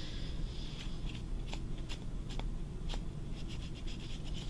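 Scratchy marking strokes on fabric: a few separate short strokes about halfway in, then a quick run of small strokes near the end.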